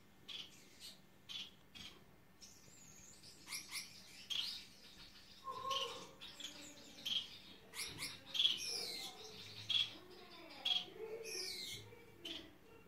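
Gouldian finches calling with short repeated chirps, joined in the middle by a run of sliding, falling song notes: a male's courtship song.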